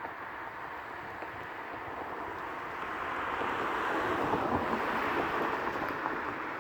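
An outdoor rushing noise with no distinct calls or knocks, swelling to a peak about two-thirds of the way through and then easing off.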